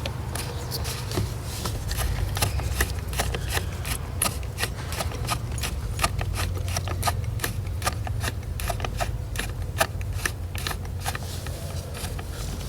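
Hand ratchet with a 12 mm socket clicking in quick runs as a fastener is driven home, over a steady low hum.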